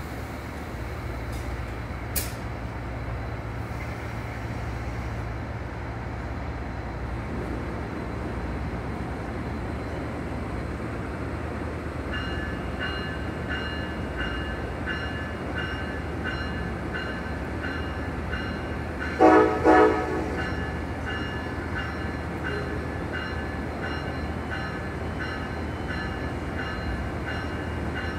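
A passenger train standing at a station platform, its engine running with a steady low hum. About halfway through, a locomotive bell starts ringing in an even rhythm. A little later the horn gives two short blasts, the signal that the train is about to move off.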